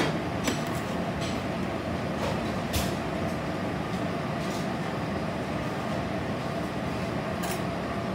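Steady hum of commercial kitchen equipment, with a faint held tone over the noise and a few light clinks from plating work.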